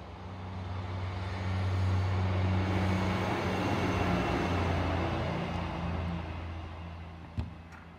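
Class 158 diesel multiple unit passing, its engine hum steady under a rush of wheel and rail noise that swells, holds for a few seconds and fades near the end. A single sharp click about seven and a half seconds in.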